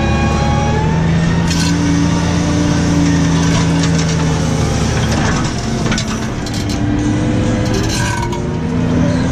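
New Holland T6.155 tractor engine running steadily under ploughing load, its pitch shifting slightly and sagging briefly in the middle, with a few light rattles.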